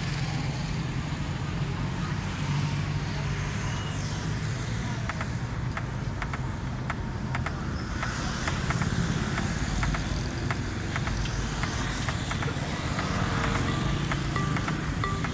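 Busy road traffic: cars and motorbikes driving past close by, engines running steadily, with a crowd's chatter in the background.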